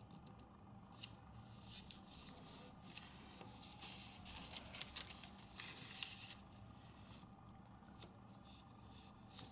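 A sheet of origami paper being folded and creased by hand, rustling in short bursts as it slides and is pressed flat, with a few crisp crackles from sharp creases.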